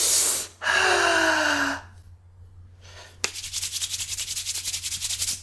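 Edited sound effects: a short whoosh, then a longer whoosh with falling tones inside it, and after a pause a fast, even rattle that runs on to the end.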